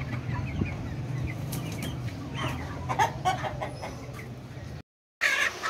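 A flock of young Light Sussex chickens clucking and calling, many short overlapping calls with a louder cluster about three seconds in. The sound cuts to silence for a moment near the end, then a loud call follows.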